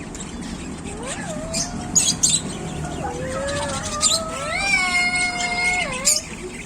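African lovebirds chirping in short sharp notes. Over them are longer drawn-out pitched calls that rise, hold steady and fall. The longest is held for about a second and a half before dropping near the end.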